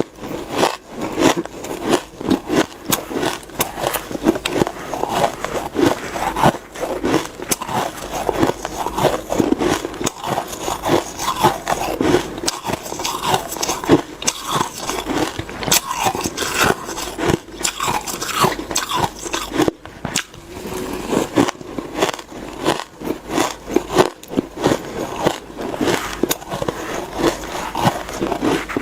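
Close-miked biting and chewing of frosty shaved ice, a dense run of sharp, irregular crunches and crackles.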